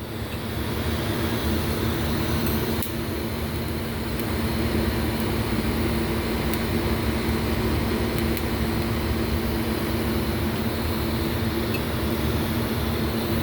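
Electric welding arc laying hardface beads on a camshaft lobe: a steady hiss over an even electrical hum. It comes up in the first second and then holds steady.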